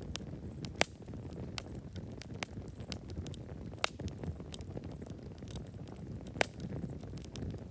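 Wood campfire burning with a steady low rumble and frequent small crackles, with three sharper pops about a second in, near the middle, and near the end. Crickets chirp in a faint, even, high pulse behind it.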